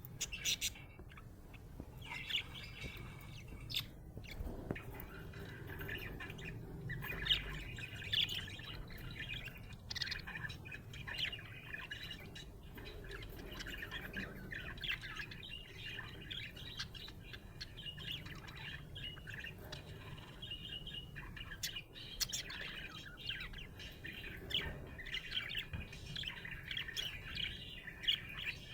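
Budgerigar chirping and warbling steadily, a dense run of short chirps with a few harsher squawks and clicks.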